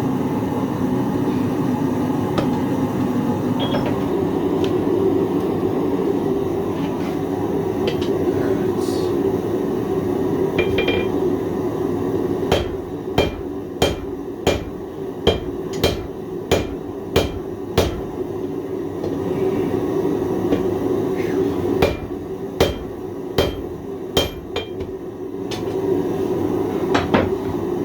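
Hammer blows on hot 1095 carbon steel at the anvil, about two a second in two runs with a short pause between, each strike ringing. Under them runs a steady low rushing noise from the forge fire.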